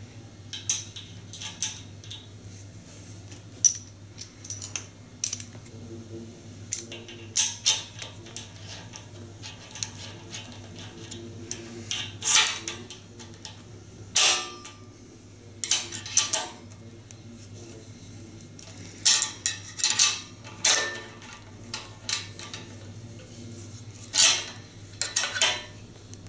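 Irregular metallic clicks and clinks from small fastener parts being handled and fitted at an aluminium extrusion profile joint, a few of them ringing briefly.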